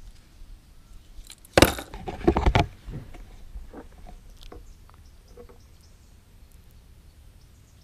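Handling noise as a popper lure is unhooked from a bream: a loud scuffling burst lasting about a second, a second and a half in, then scattered light clicks and clinks.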